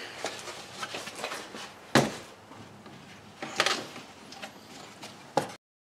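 Knocks and clicks of the car's air intake ducting being handled and fitted back in the engine bay: a sharp click about two seconds in, a clatter over a second later, and another click near the end, after which the sound cuts off abruptly.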